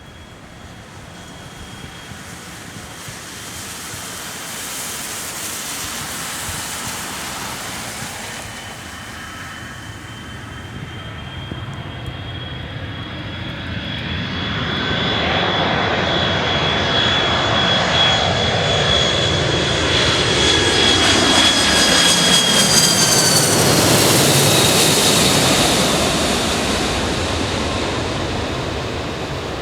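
USAF KC-10A Extender's three General Electric CF6 turbofans passing overhead on arrival. A high steady whine and a broad rush grow louder, peak about three quarters of the way through, and the whine drops in pitch as the tanker goes by.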